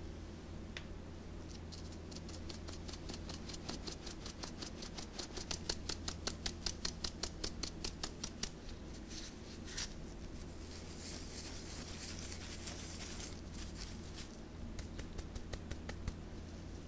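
Dry scone ingredients being sifted through a fine stainless-steel mesh sieve: the sieve is shaken in quick, even strokes, about four a second, each a soft rasp of powder against the mesh. After about ten seconds the strokes give way to a softer steady hiss of powder sifting through.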